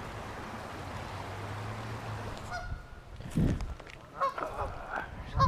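Geese honking several times in short calls from about halfway in, over the steady rush of flowing stream water. A dull low bump comes a little after the honking begins.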